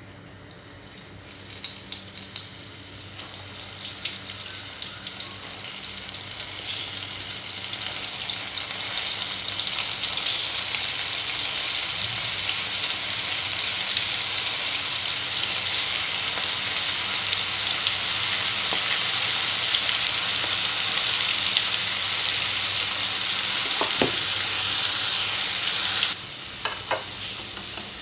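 Breaded shrimp deep-frying in hot oil in a stainless steel pan. Crackling starts about a second in and builds over several seconds into a loud, steady sizzle, which drops off suddenly near the end.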